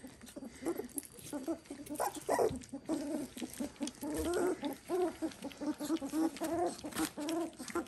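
Weaning-age Dalmatian puppies making many short squeaky grunts and whines, one after another, with small clicks and taps mixed in.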